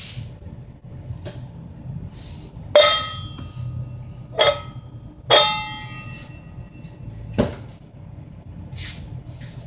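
Stainless steel pot knocking on the metal pot supports of a portable gas stove. Three ringing metallic clangs come about three, four and a half and five and a half seconds in, then a duller knock about seven and a half seconds in.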